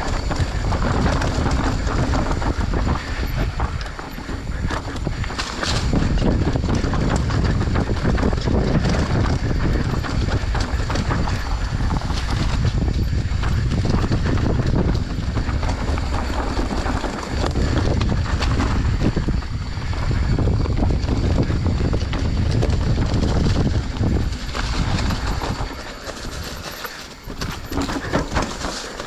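Enduro bike being ridden over a rough trail: constant rattling and knocking from the bumpy ground under heavy wind noise on the microphone, easing off briefly near the end.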